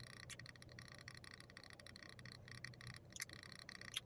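Quiet car cabin: a faint, steady low hum from the running air conditioning, with a few soft clicks, one about a third of a second in, one a little after three seconds and one near the end.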